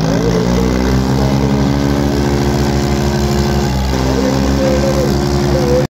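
Tractor diesel engine running hard at high revs, rising in pitch over the first second and then holding steady with a low even chug, with shouting voices over it.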